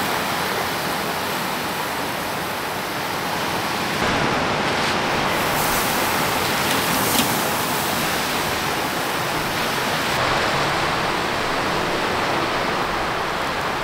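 A big rump steak searing over the direct coals of a charcoal kettle grill: a steady, even sizzling hiss that gets a little louder about four seconds in, with one short tick around seven seconds.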